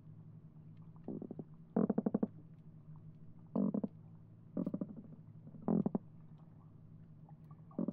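Croakers calling underwater, picked up by a hydrophone: six short bursts of rapid knocking pulses, each well under a second, drummed on the fish's swim bladder as a spawning call. A steady low hum runs underneath.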